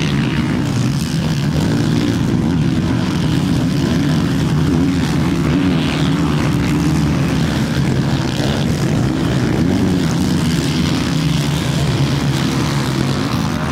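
Several 450cc four-stroke motocross bike engines racing past, revving up and down continuously as the riders work the throttle.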